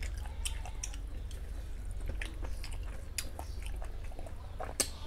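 Fingers squishing and mixing rice with mutton fat curry on a steel tray: scattered wet clicks and squelches, with one sharper click near the end, over a steady low hum.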